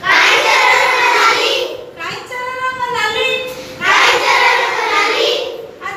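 Schoolchildren singing an Odia children's action rhyme in chorus with a woman leading: two loud group lines, with a quieter, clearer sung line between them.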